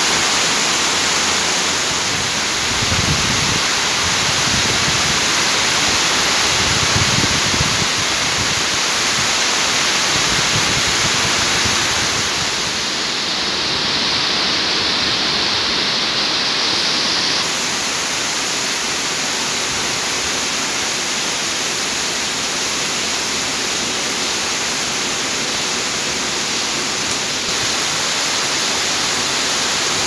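Heavy rain falling steadily on roofs and a flooded street, a dense even hiss. There are low rumbles a few seconds in, and a brighter, hissier stretch in the middle.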